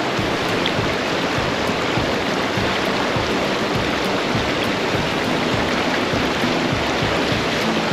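Fast-flowing river rushing steadily, a constant noise of water with no change in level.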